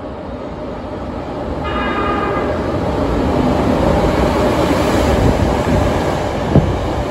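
Hankyu train's electric horn giving one short tone, a little under a second long, about two seconds in, as the train approaches. The train then comes past at speed, its running noise growing steadily louder, with one sharp clank near the end.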